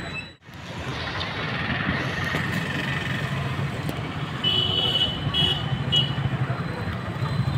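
Street traffic noise, a steady rumble of engines, with a vehicle horn tooting three short times about two-thirds of the way through. The sound drops out briefly just after the start.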